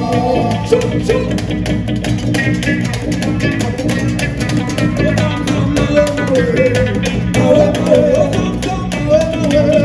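Live band music from a small Congolese group: plucked guitars and bass over steady percussion, with a sung lead vocal line.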